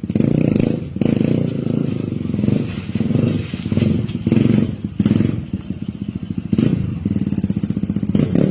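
Kawasaki KLX150 dirt bike's single-cylinder four-stroke engine being tested, revs rising and falling in repeated surges. Around six seconds in it drops to a slower putter of separate firing pulses, then picks up again.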